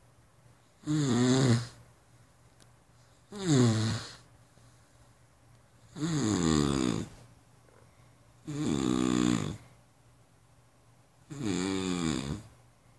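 Snoring: five snores in a steady rhythm, one about every two and a half seconds, each lasting under a second, with a wavering pitch.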